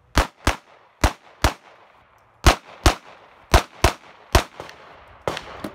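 Semi-automatic handgun fired in a string of about ten shots, mostly in quick pairs (double taps) with a second or so between pairs, each crack trailed by a short echo.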